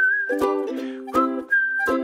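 Background music: a whistled melody of long held notes over plucked strings strummed about once every three-quarters of a second.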